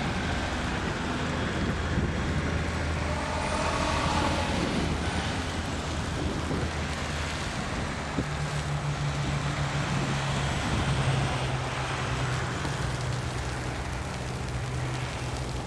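Road traffic on a highway: vehicle engines running and passing, with a steady low engine hum that steps up in pitch about halfway through and a brief rising and falling whine from a passing vehicle a few seconds in.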